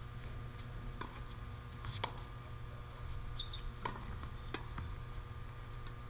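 Tennis ball being struck by rackets and bouncing on a hard court during a rally: sharp, distant pocks roughly once a second over a steady low background rumble.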